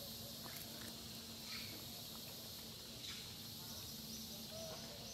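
Outdoor nature ambience: a steady high insect drone with a few faint, short calls and a low steady hum underneath.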